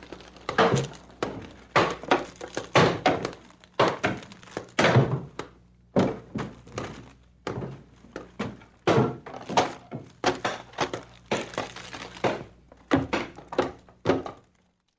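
Wooden structure being demolished: a rapid, irregular series of heavy thunks and cracks as timbers are struck and broken, stopping abruptly near the end.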